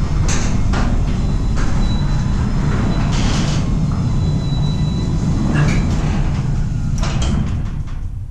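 Genie 1.25 HP belt-drive garage door opener running as the steel sectional door rolls up its tracks: a steady rumble with occasional clicks and rattles. It winds down near the end as the door reaches its newly set up limit.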